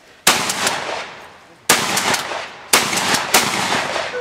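Four shotgun shots at clay targets over about three seconds, the last two closer together, each trailing off in echo.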